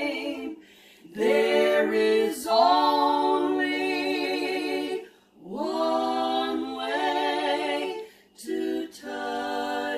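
Three women singing a worship song together a cappella, unaccompanied, in long held phrases with vibrato. They break for a breath about a second in, again after five seconds and briefly after eight seconds.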